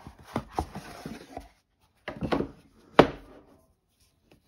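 A hard watch presentation box handled in gloved hands: a run of light knocks and rubbing, then a sharp clack about three seconds in.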